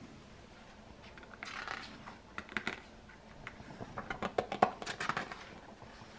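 Paper rustling with crisp clicks and crackles as the stiff pages of a pop-up picture book are handled and turned, busiest about four to five seconds in.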